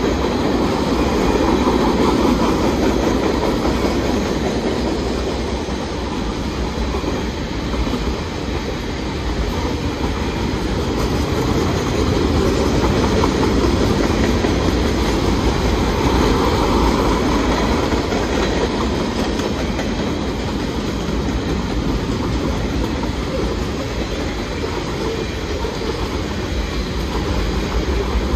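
Railroad cars rolling past on the rails, a steady rumble of wheels on track that swells and eases slightly.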